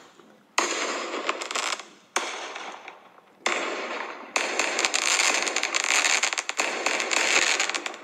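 A fireworks recording played through a phone's small speaker, thin and without bass. There are four separate bangs about a second and a half apart, each trailing off, then dense, near-continuous crackling from about halfway through.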